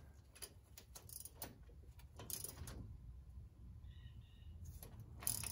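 Faint, scattered metal clicks and taps of a hand wrench working the rear differential cover bolts, snugging them up without torque so the RTV gasket squeezes out, with a sharper click cluster near the end.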